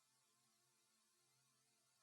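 Near silence: only a very faint, steady hiss and low hum.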